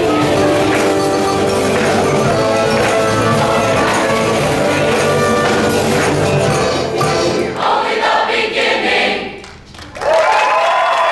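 Large mixed choir singing with accompaniment, the music closing out about eight seconds in. After a brief lull, the audience bursts into applause and cheering near the end.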